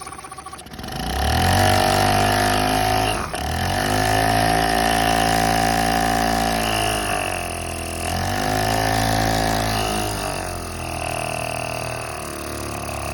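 Mercury/Tohatsu 5 hp two-stroke outboard motor with a 3D-printed tuned intake, revved up about a second in and held at high speed, with a brief dip, then dropping back and revving up a second time before settling to a lower speed near the end.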